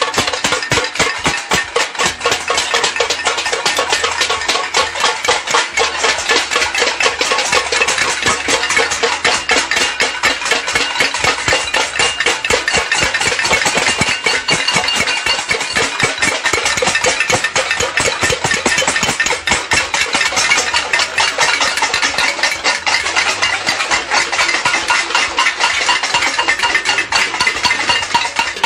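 Pots and pans being banged rapidly in a noise-barrage protest: a loud, dense metallic clatter that never lets up.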